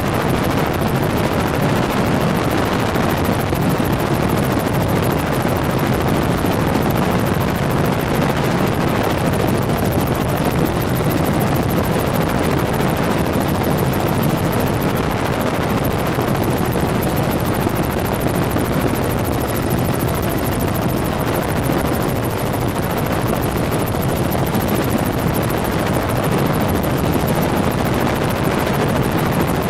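Helicopter engine and rotor noise heard from aboard in flight: a loud, steady drone.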